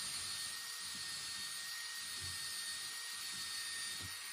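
Electric drill running steadily and slowly, boring a long 1/8-inch pilot hole through a wooden door, with a faint steady whine; it stops near the end.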